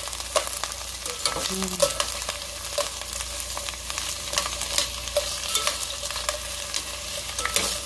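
Onion, garlic and tomato frying in oil in a stainless-steel pot, with a steady sizzle, while metal tongs stir them, clicking and scraping against the pot at irregular intervals.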